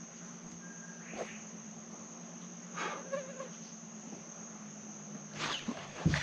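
A steady, high-pitched drone of insects, over a steady low hum, with a few faint brief knocks and a soft thump near the end.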